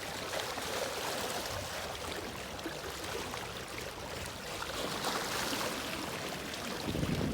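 Water running or lapping steadily. A low rumble comes in near the end.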